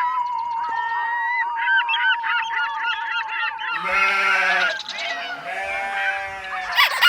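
Geese honking: a run of quick, overlapping honks over a steady whistle-like tone, then two long, nasal honks in the second half.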